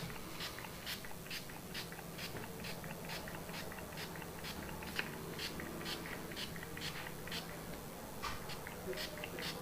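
Small hand spray bottle misting a watered-down PVA glue mix onto loose model railway ballast, in quick short squirts at about two or three a second, soaking the ballast to lock it in place.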